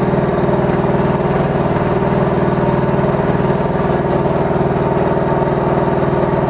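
Mygale 500 micro-excavator's engine running steadily while its hydraulic boom and arm are worked to lift a hanging car engine.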